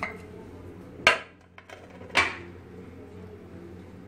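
Aluminium pot and lid knocking together: a light clink at the start, then two sharp metallic clanks about a second apart, each ringing briefly.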